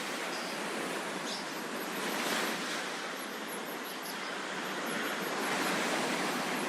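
Sea waves washing onto the shore, a steady rushing hiss that swells about two seconds in and again near the end.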